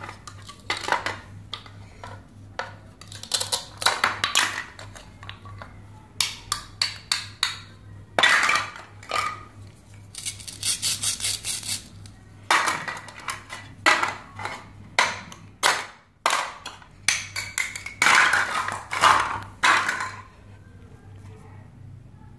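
Hard plastic toy food pieces clacking against a plastic cutting board and a plastic toy knife, in irregular clusters of sharp knocks and rasping scrapes. Among them are quick ripping sounds as velcro-joined toy halves are pulled apart. The handling stops a little before the end.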